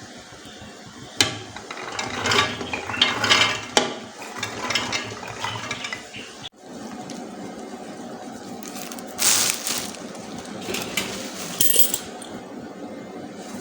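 Kitchen utensils and dishes clinking and knocking during food preparation, with a sharp clink about a second in and a busy run of handling noise after it. The sound breaks off abruptly just past the middle and resumes steadier, with a few more clinks later on.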